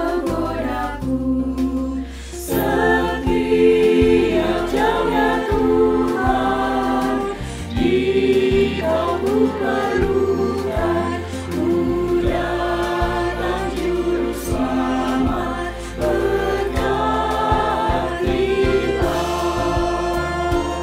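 Church choir of women's and men's voices singing a hymn in parts, mixed together from separate home recordings.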